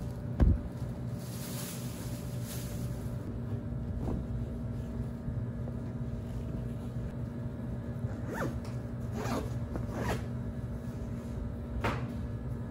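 A fabric backpack's zipper being worked in a few short strokes, after a thump about half a second in, over a steady low hum.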